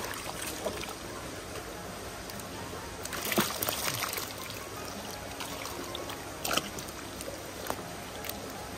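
Water running and trickling steadily, with short splashes about three seconds in and again about six and a half seconds in, as koi are handled in sorting tubs of water.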